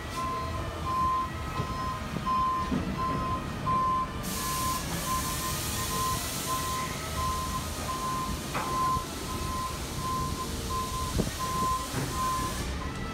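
A vehicle's reversing alarm beeping steadily, about three beeps every two seconds, over a low engine rumble. A steady hiss comes in about four seconds in.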